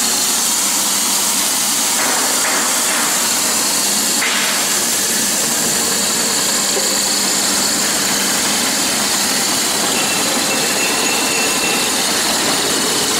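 Small floating fish feed pellet extruder running: its electric motor and screw make a steady mechanical noise with a constant hum.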